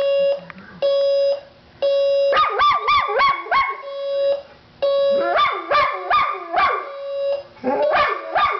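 Electronic alarm clock beeping, long even beeps about once a second, with a Boxer–American Staffordshire terrier mix dog howling along. The howls start about two and a half seconds in and come in three bouts of rising and falling cries, set off by the beeping.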